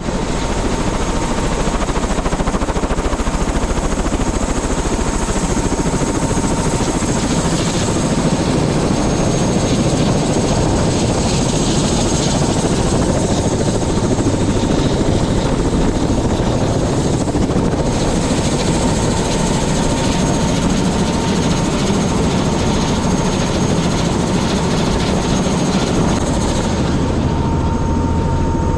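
Helicopter running steadily: a loud, even rush of rotor and engine noise with a faint constant whine.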